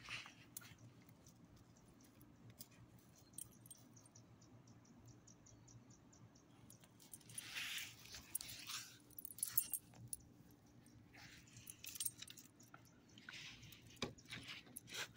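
A small dog's metal collar tags jingling in a few short bursts as the dog moves about, with light clicks and scuffs between them.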